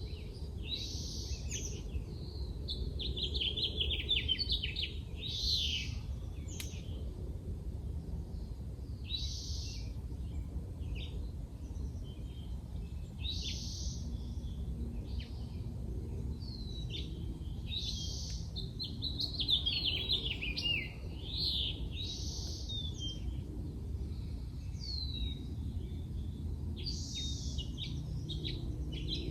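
Birds calling and singing in short phrases every few seconds, some phrases made of quick runs of falling notes, over a low steady background rumble.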